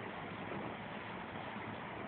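Steady, even hiss of background noise with no distinct sounds or rhythm.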